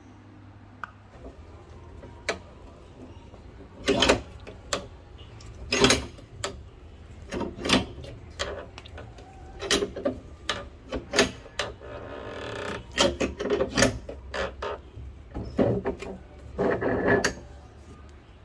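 Metal clunks and knocks of a steel bench vise being worked to press a ball bearing into a hole in a PVC plate: a dozen or so sharp knocks, uneven in spacing, with a short scraping stretch near the middle.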